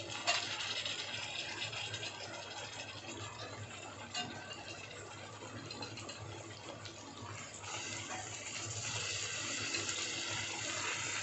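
Hot tomato-onion masala sizzling in a steel kadhai as drained boiled kidney beans are added, with a couple of light clicks. The sizzle grows louder about two-thirds of the way through.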